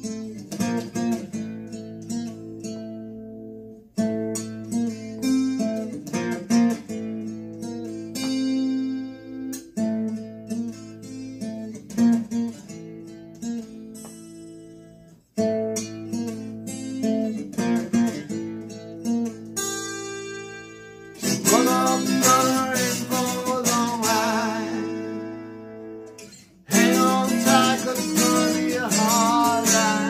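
Gibson Gospel acoustic guitar played solo: picked chords in phrases of a few seconds with short breaks, then fuller, louder strumming over the last third.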